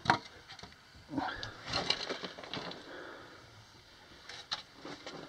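A sharp knock as a wooden explosives-box board is put down on rock, followed by irregular scraping, crunching and clicks of handling and moving over loose rock rubble.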